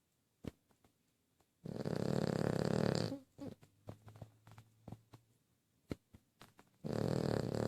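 A sleeping pet snoring: two long rattling snores a few seconds apart, with faint clicks and snuffles in between.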